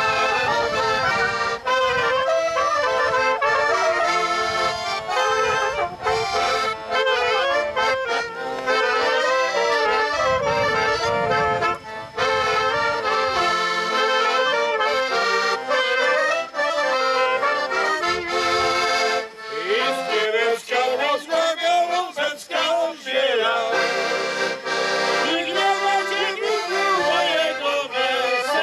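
A small folk band, piano accordion with clarinet and trumpet, playing a traditional tune.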